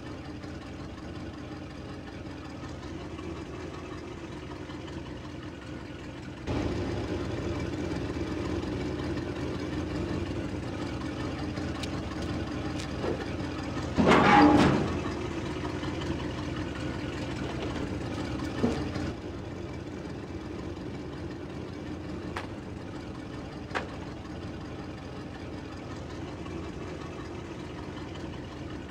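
Old pickup truck's engine idling and running with a steady hum, louder through the middle stretch, with one short loud swell about halfway through.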